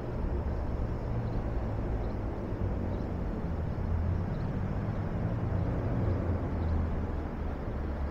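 Vehicle engine running nearby, a steady low drone with no clear rise or fall.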